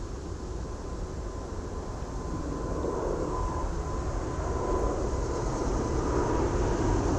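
A distant engine drone that grows steadily louder.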